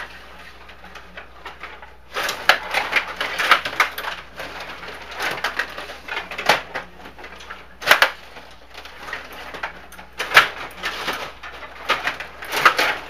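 Hockey play: sharp clacks of sticks and puck and bursts of skate scraping, coming in clusters every second or two, with the loudest clacks about eight and ten seconds in.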